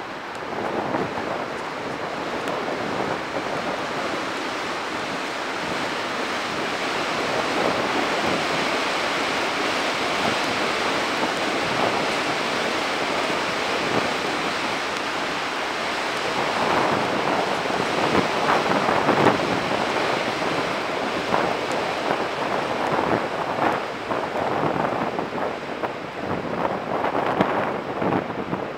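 Wind buffeting an outdoor microphone: a steady rushing noise that swells and eases in gusts, growing more uneven in the second half.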